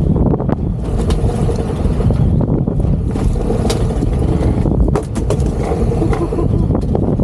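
Heavy low rumble of wind buffeting the microphone aboard a boat trolling through choppy water, with a few sharp ticks around the middle.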